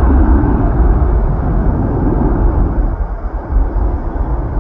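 Twin jet engines of an easyJet Airbus at takeoff thrust: a loud, deep rumble as the airliner rotates and lifts off the runway, easing slightly about three seconds in.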